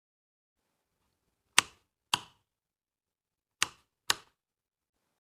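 Four sharp knocks in two pairs: two knocks half a second apart, then about two seconds later two more, against dead silence.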